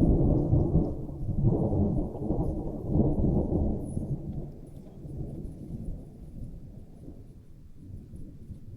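Thunder rumbling deep and low, swelling in a few rolling surges over the first three seconds or so, then slowly dying away.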